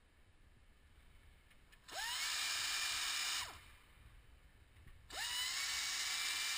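Pneumatic air ratchet running in two bursts while it spins out a bolt, each starting with a rising whine that levels off over a hiss, about two seconds in and again about five seconds in.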